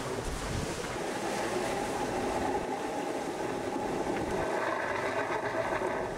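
Water rushing along the hull of an IMOCA 60 racing yacht under sail, with wind over the deck and a steady whining hum that grows louder about four seconds in.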